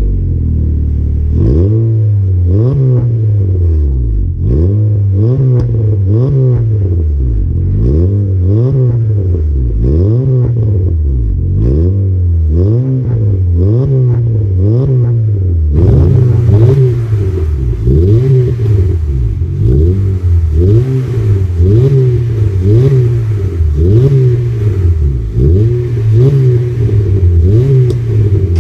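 Honda City's i-VTEC four-cylinder engine revved through an aftermarket cat-back exhaust in short, repeated throttle blips, about one a second, each rising and falling in pitch. From about halfway through the exhaust is heard close to the tips, with more hiss.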